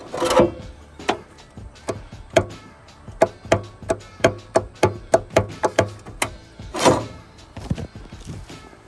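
A run of sharp knocks, about three a second for some three seconds, with heavier thuds just after the start and about seven seconds in, over background music.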